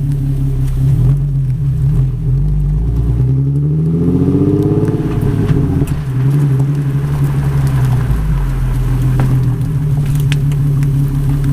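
Exhaust note of a 2014 Infiniti Q60S's 3.7-litre V6 with the muffler deleted, keeping only the stock resonator, heard close at the tailpipe while driving at low speed. The note climbs in pitch for about two seconds as the car accelerates, about three seconds in, then settles back to a steady low drone.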